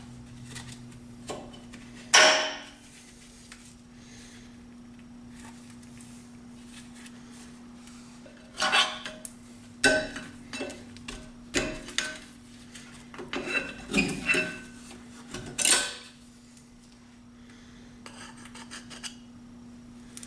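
Steel-backed brake pads clinking and scraping against the caliper carrier as they are worked loose and slid out with a flathead screwdriver. A sharp metallic clank comes about two seconds in, then a run of clinks and scrapes from about eight to sixteen seconds, over a faint steady hum.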